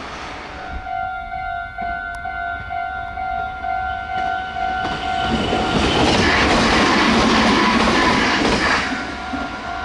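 Japanese level-crossing warning bell ringing with a steady, evenly repeating two-tone ding. About five seconds in, a train passes at high speed and its loud rush of wheel and wind noise drowns the bell for about three seconds. The bell is heard again near the end.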